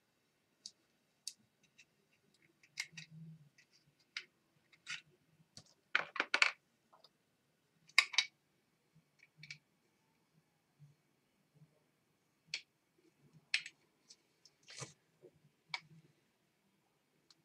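Light clicks and taps of small plastic i7 TWS earbuds and their charging case being handled and set down on a hard bench, coming at irregular intervals, loudest about six and eight seconds in.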